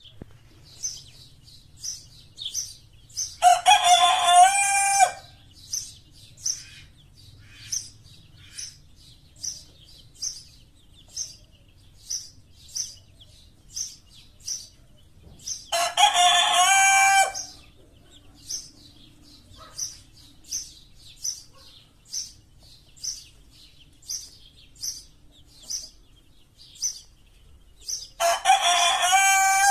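A rooster crowing three times, each crow about one and a half seconds long and some twelve seconds apart. Behind it a small bird or chick gives a short high chirp over and over, about every half second.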